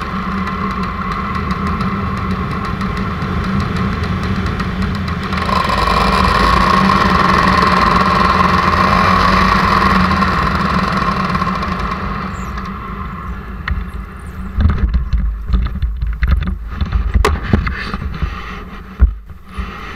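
Paramotor engine running steadily, growing louder and higher about five seconds in, then dying away after about twelve seconds as the throttle comes off. Near the end come irregular thumps and wind buffeting the microphone as the paraglider comes in to land.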